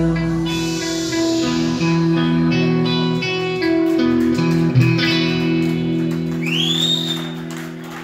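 Live band playing the closing instrumental bars on electric guitar, bass and keyboards, with strummed chords held and ringing. The last chord fades away near the end, and a loud whistle rises over it.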